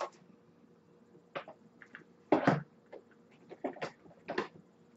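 Hands handling small objects on a table, e-juice bottles and vaping gear being picked up and set down: a scattered series of short knocks and clicks, the loudest about halfway through.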